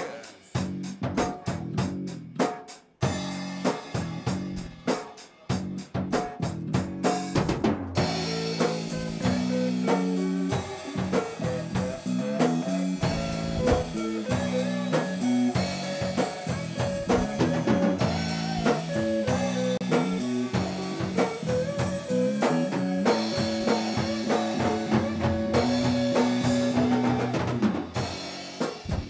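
Rock band playing an instrumental passage with drum kit, guitar and bass and no singing. For the first three seconds there are only scattered hits with gaps between them, then the full band plays on steadily.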